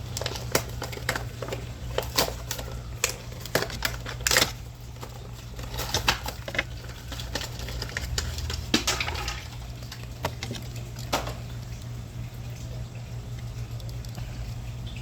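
Packaging of a Majorette die-cast toy car being pried open and handled: a run of sharp clicks, snaps and crackles that thins out after about eleven seconds, over a steady low hum.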